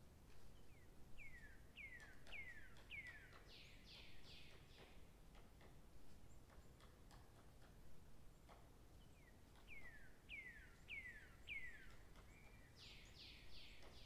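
A songbird singing faintly. Each phrase is four or five falling whistled notes about half a second apart, ending in a quick cluster of higher notes, and the phrase comes twice, several seconds apart.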